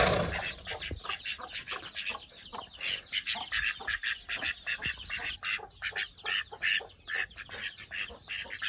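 Domestic ducks quacking in many short, quick calls as they come out of their brick shelter, with a brief rustling noise at the very start.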